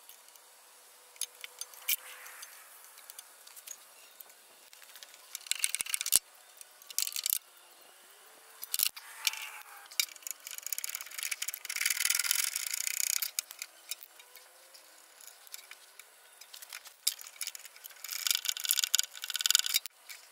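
Hand tools unbolting the exhaust manifold from a trail mower's Kohler engine: scattered metallic clicks, clinks and rattles of spanner and bolts, with longer rasping stretches about halfway through and again near the end.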